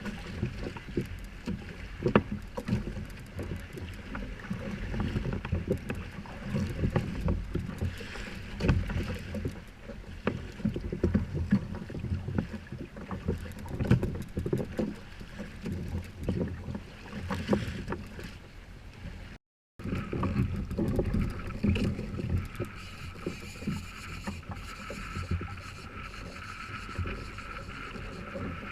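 Water slapping and splashing around a fishing kayak on the sea, with irregular low thumps of wind buffeting the microphone. The sound cuts out completely for a moment about two-thirds of the way through.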